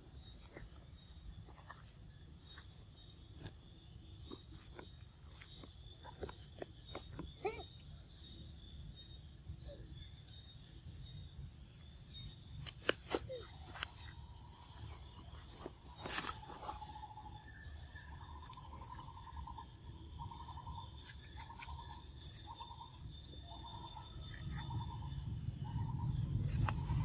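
Forest ambience: a steady high insect drone with scattered soft clicks and rustles in leaf litter. In the second half a short pulsing call repeats a little more than once a second, and a low rumble grows louder near the end.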